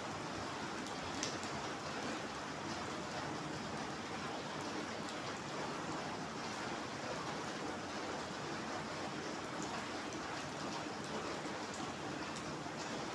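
Steady rain falling on wet paving stones and puddles, with a few sharper drop hits now and then.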